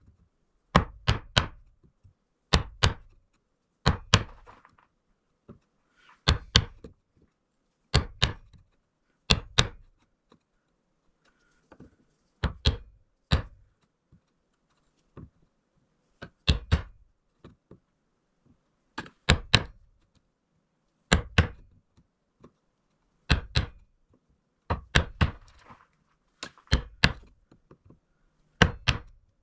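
A chisel being struck with a mallet to chop a groove in a softwood board. The sharp knocks come in quick groups of two to four, one group every second or two.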